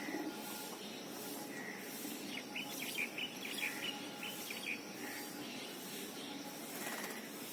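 Birds chirping over a steady outdoor background hiss: a quick run of short chirps for a couple of seconds around the middle, with a soft single note every second or two.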